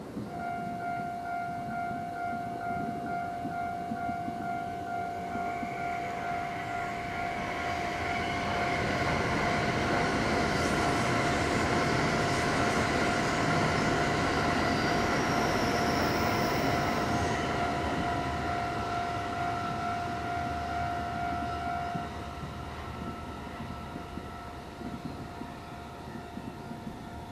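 A train passing on the tracks: its running noise swells to a peak in the middle and then fades as it goes away. A steady high tone runs over it and stops abruptly about 22 seconds in.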